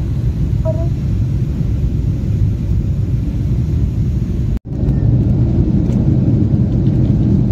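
Jet airliner on the ground after landing, heard from inside the cabin: a steady, loud low rumble of the engines and rolling wheels. It cuts out for an instant about four and a half seconds in, then carries on the same.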